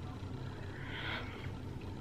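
Pause between words: a steady low room hum, with one soft breath about a second in.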